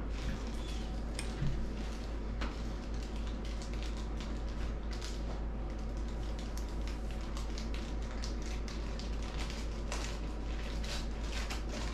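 Room noise: a steady low hum and hiss with many scattered soft clicks and crackles.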